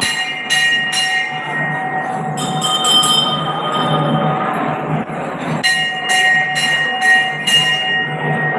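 Metal temple bell rung over and over, about two to three strikes a second, each strike ringing on. The strikes pause briefly about two seconds in. A steady background din runs underneath.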